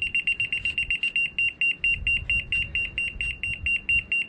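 Laser level receiver beeping rapidly at one high pitch, about eight beeps a second: its off-grade signal, telling the user to move the receiver up or down the rod.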